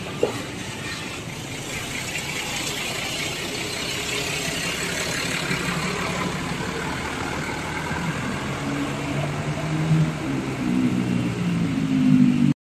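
Tourist bus engine running in street traffic, with a short click just after the start and a low pitched drone growing over the last few seconds.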